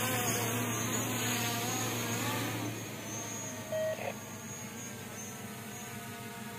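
Small quadcopter drone's propellers whining, the pitch rising and falling as it manoeuvres, then steadier and fainter as it flies off. A short beep about four seconds in.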